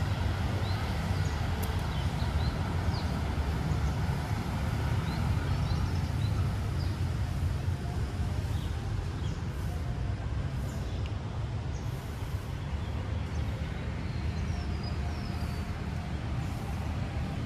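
Steady low rumble of road traffic with short, high bird chirps scattered over it.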